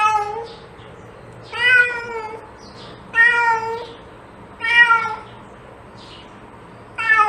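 Domestic cat meowing repeatedly, one meow about every second and a half, each falling in pitch at the end.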